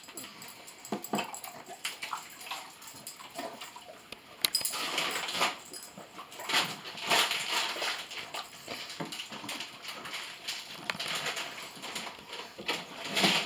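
A pug's sniffing and breathing noises as it moves about, a string of irregular short noisy bursts that grow busier after about four seconds.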